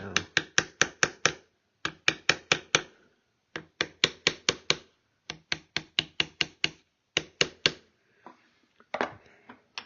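Rapid light mallet taps on a chisel cutting wood, in bursts of several strikes at about six a second with short pauses between: the ramrod channel of a wooden rifle stock being cut deeper.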